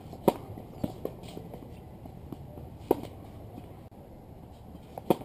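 Tennis ball struck by a racket on a serve: a sharp pop about a quarter second in, then a few fainter knocks of the ball. There is another loud knock near three seconds, and a second serve strike just after five seconds.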